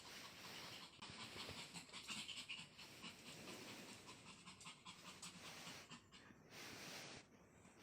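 Small Pomeranian dog panting rapidly, a quick breathy rhythm that eases off near the end.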